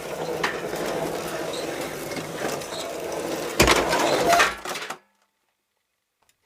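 Clattering and clinking of handled objects over a noisy bed, with a heavier crash about three and a half seconds in, then the sound cuts off suddenly.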